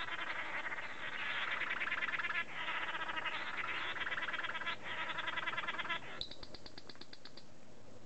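Male manakins giving their buzzy lek display calls: a dense, rapidly pulsed buzzing for about six seconds, broken twice, then a fast run of high ticks lasting about a second.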